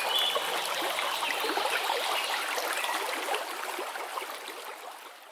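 Water trickling and babbling like a small stream, fading out near the end.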